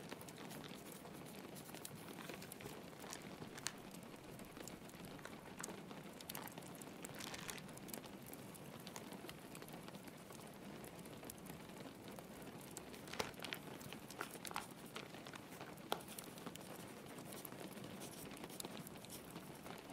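Faint fireplace crackle over a steady patter of rain on a window: a constant soft hiss with scattered sharp pops, a handful of them louder.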